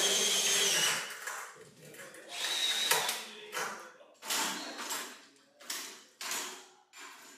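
Power drill or screw gun on a construction site running with a steady whine that stops about a second in, then a second short run near three seconds in, followed by a string of short sounds about every half second that grow fainter.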